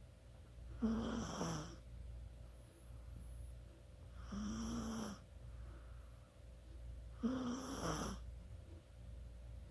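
Chihuahua snoring in its sleep: three snores about three seconds apart, each lasting under a second.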